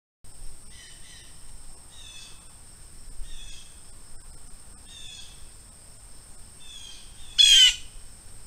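Wild birds calling over a steady high-pitched whine: a short song phrase repeated five times, about every second or two, then one loud, harsh call near the end.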